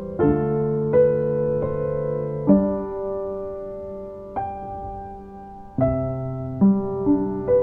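Background piano music: slow chords and notes struck one after another, each left to ring before the next.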